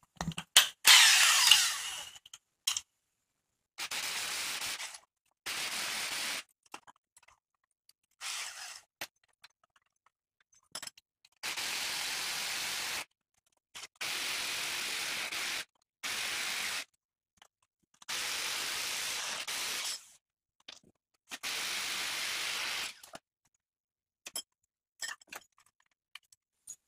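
Cordless impact wrench run in short bursts, about eight of them a second or two long with pauses between, unscrewing a coil-spring compressor's threaded rods to let the spring tension off a rebuilt front strut assembly.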